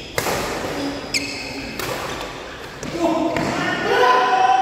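Badminton rally: a sharp crack of a racket smashing the shuttlecock just after the start, then two more quick sharp hits over the next second and a half, echoing in a large hall. Players' voices call out over the last second and a half.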